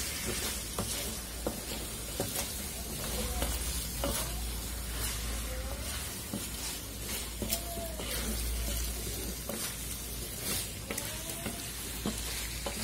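Beef curry sizzling in a metal karahi while a spatula stirs and scrapes the meat around the pan, with frequent light clicks and scrapes over a steady sizzle. The meat is being browned down (kosha) in a thick masala, stirred so it doesn't stick to the pan and burn.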